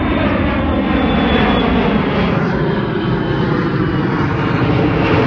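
Airplane flying low overhead, its engines loud and steady, with the engine pitch slowly falling as it passes.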